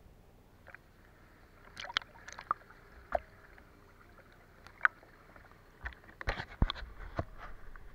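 Water sloshing and splashing around a camera held at the sea surface, heard as a scatter of sharp pops and clicks over a faint hiss, coming thicker near the end.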